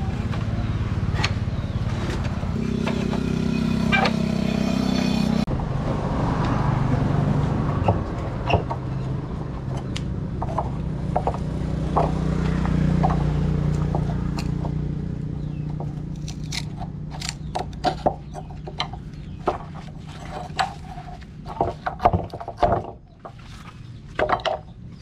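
A steady low mechanical hum with scattered knocks and scraping, which fades after about fifteen seconds into a run of sharp metal taps and clinks.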